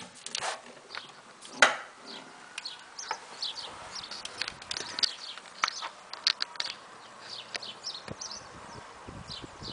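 Small birds chirping and singing outdoors, many short quick high notes in rapid succession. Two sharp knocks come in the first two seconds, the louder one just under two seconds in.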